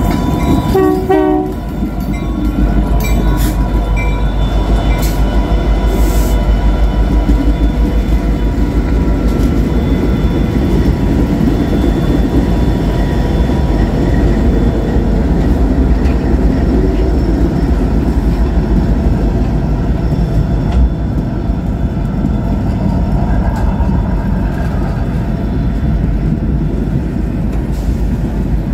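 Diesel freight locomotive air horn sounding a chord that cuts off about a second and a half in. Then a freight train rolls past with a loud, steady rumble of locomotive engines and wheels on rail.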